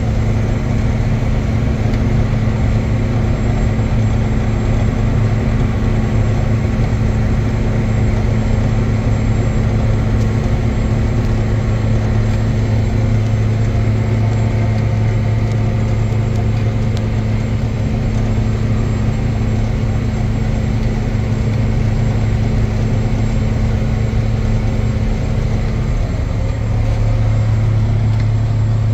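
John Deere 9300 tractor's six-cylinder diesel engine running steadily under load while pulling a mulch ripper through field stubble, heard from inside the cab as a constant low drone. The tone shifts slightly a few seconds before the end.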